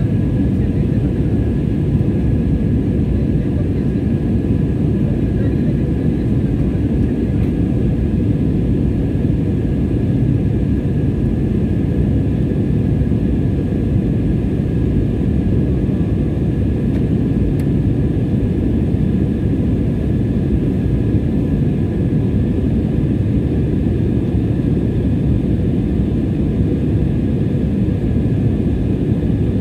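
Steady roar of a jet airliner's engines and airflow heard from inside the passenger cabin in flight, a deep even rumble with a faint steady whine above it.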